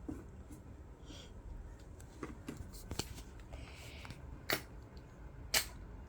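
A few small clicks and taps from a stiff plastic syringe being handled and its plunger worked, with two sharper clicks in the second half.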